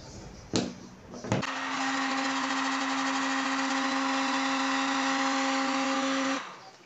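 Electric heat gun running: after two sharp clicks, its fan motor starts and blows with a steady hum and rush of air for about five seconds, then cuts off. It is heating polyethylene repair rod to melt it onto a mesh patch over a crack in a polyethylene kayak hull.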